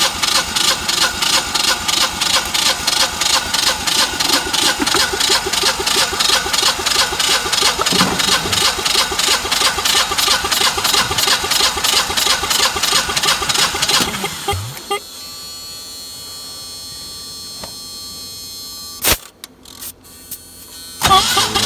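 Standby generator engine turned over by its electric starter with the spark plugs out for a compression test: an even, rapid chugging with no firing. It stops about 14 seconds in, leaving a low steady hum and a sharp click, and the cranking starts again just before the end.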